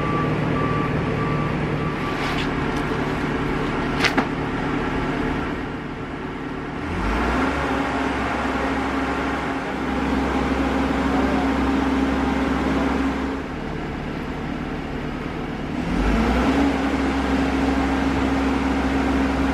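Mobile boat hoist's engine running, speeding up about seven seconds in and again near the end and holding a steady higher hum each time. Intermittent beeping in the first couple of seconds and a sharp knock about four seconds in.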